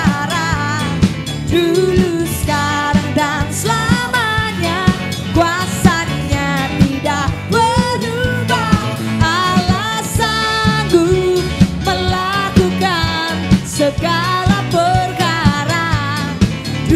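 A contemporary worship song: a voice singing a melody over a band with a bass line and a steady drum beat.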